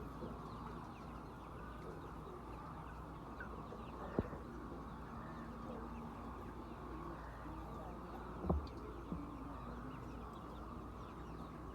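Domestic chickens clucking softly over a steady low hum, with a few sharp knocks about four seconds in and twice more around eight and a half to nine seconds.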